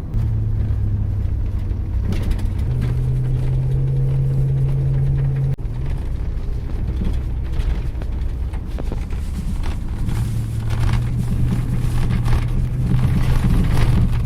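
Pickup truck engine droning with road and tyre rumble, heard from inside the cab while driving uphill; the engine note steps up in pitch about three seconds in, breaks off abruptly partway through, and then resumes.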